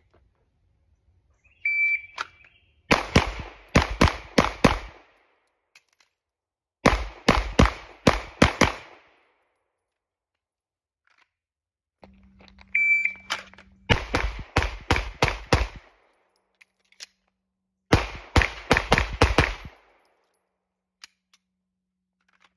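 Short electronic beep, then a Glock 17 Gen 5 9mm pistol fired in quick strings of about six shots, with a pause between strings for the reload. The sequence of beep and two strings happens twice.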